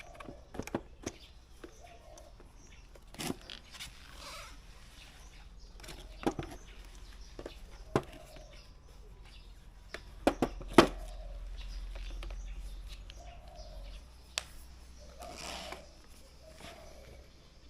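Scattered sharp clicks and knocks over a faint low hum, the loudest knocks coming about ten to eleven seconds in.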